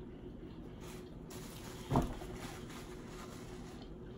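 Faint chewing and handling of food and a napkin over a clamshell takeout box, with a single dull thump about two seconds in.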